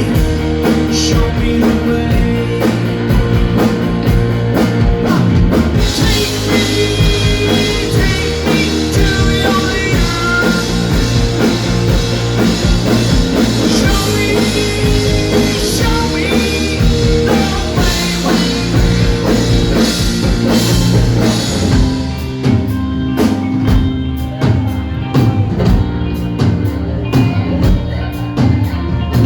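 Rock band playing live: drum kit and electric guitar driving the song, loud throughout. About three quarters of the way through the upper range thins out into a sparser stretch.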